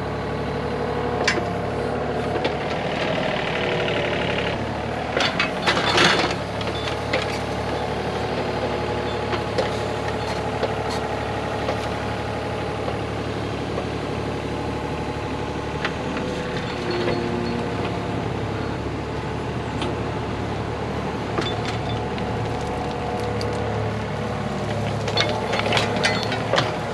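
An engine running steadily at a constant pace, with a few sharp knocks and clatters about five seconds in and again near the end.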